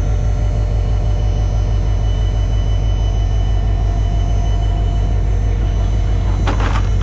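Diesel locomotive engine running close by: a loud, steady, deep rumble with a constant drone above it.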